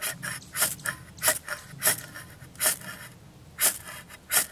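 Ferro rod scraped hard with the edge of a Cold Steel Special Forces shovel, a string of about seven sharp rasping strikes, roughly one every half second to a second. Each strike throws sparks to light cotton balls coated in petroleum jelly.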